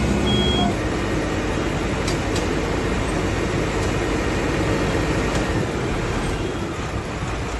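Steady mechanical running of an aerial ladder fire truck as its rescue basket is lowered to the street, with a couple of faint clicks about two seconds in.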